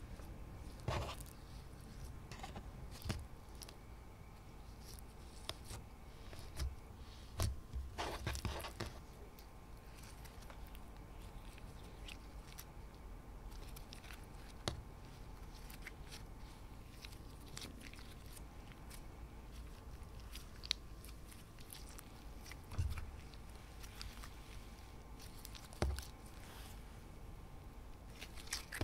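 Clear slime loaded with blue glitter being kneaded and stretched by hand: soft, sticky crackles and squelches, with a few louder clusters of pops scattered through.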